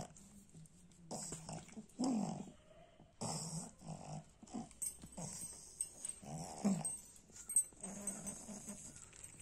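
Pug making short grunts and whines in repeated bursts, a few rising and falling in pitch, as drops are put into its ear and the ear is rubbed.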